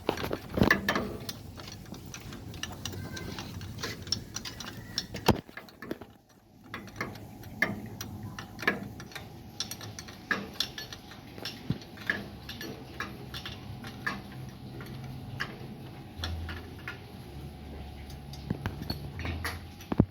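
Irregular clicks and light metallic knocks of hand work on an engine, with no engine running.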